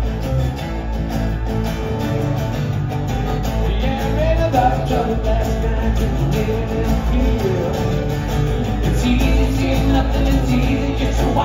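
Live acoustic rock band playing an instrumental passage between chorus and verse: two acoustic guitars over an acoustic bass guitar.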